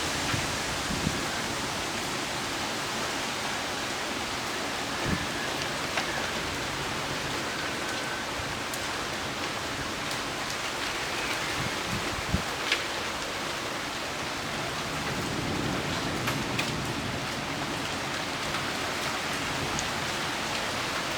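Heavy rain falling steadily, with a few sharp taps of drops striking something close by.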